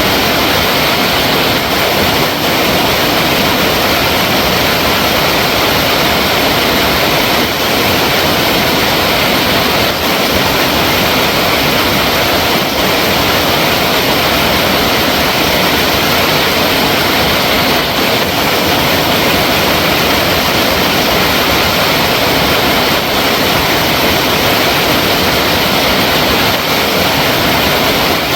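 Flowing water making a steady, unbroken rush.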